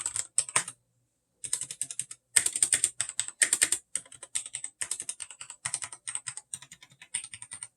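Typing on an AKKO Ducky Zero mechanical keyboard with Cherry MX Red linear switches: a rapid run of key strokes, with a pause of about half a second near a second in. The typing stops just before the end.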